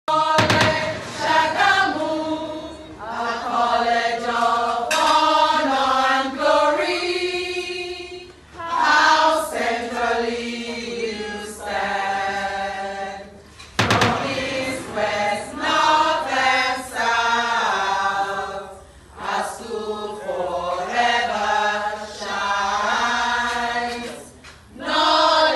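A choir singing in phrases a few seconds long, with a sharp hit right at the start and again about halfway through.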